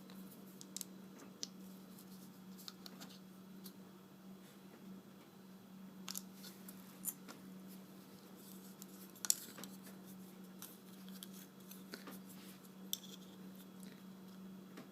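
Scattered small clicks and scrapes of a hand tool prying and picking at the insides of a dismantled LED light bulb, the sharpest about nine seconds in, over a steady low hum.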